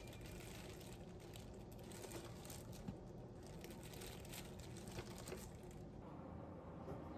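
Faint crinkling and rustling with a few light taps, over a low steady hum.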